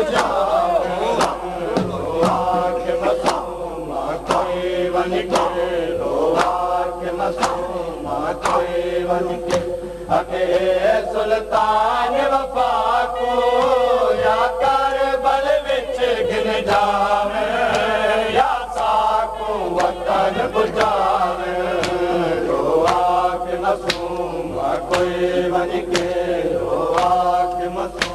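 Men chanting a Saraiki noha, a Shia lament, with the sharp slaps of mourners beating their chests (matam) keeping a steady beat.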